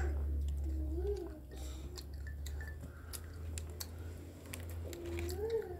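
Small scattered clicks and taps of a wooden skewer and a drinking glass being handled on a plastic tray, over a low steady hum. A young child's short high vocal sounds come about a second in and again near the end.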